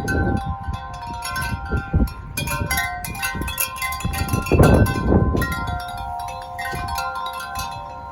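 Wind chimes struck rapidly and without pause by strong wind, many overlapping ringing tones. Gusts rumble on the microphone, the strongest about halfway through.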